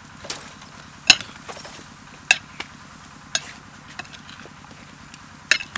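Two metal spoons tossing a canned-sardine salad in a glass bowl, clinking sharply against the glass about five times at uneven intervals.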